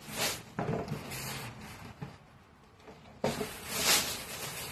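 Rustling and handling noises as clothes are picked up and moved about: a couple of short bursts near the start, a quieter stretch in the middle, then a longer stretch of rustling a little past three seconds in.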